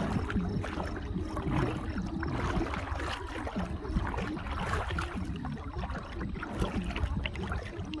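Wind buffeting the microphone over a river's running, gurgling water, with small scattered clicks.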